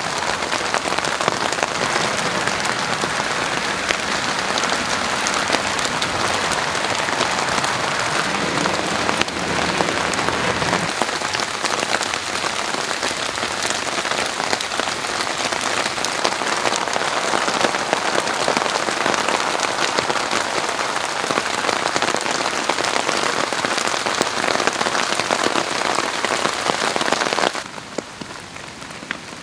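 Steady heavy rain, a dense hiss of many drops pattering on surfaces. Just before the end the level falls suddenly to a softer rain.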